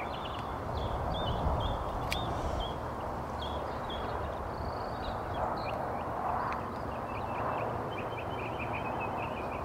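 Birds chirping and calling, with a short trill of chirps near the end, over a steady low rumble. There is one sharp click about two seconds in.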